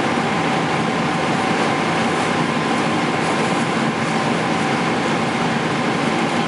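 Steady cabin noise inside a Boeing 777-300ER at cruise altitude: an unbroken rush of airflow and engine noise with a faint steady hum over it.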